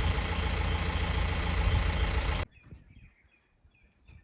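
Safari vehicle's engine running steadily, cutting off abruptly about two and a half seconds in. Faint bird chirps follow.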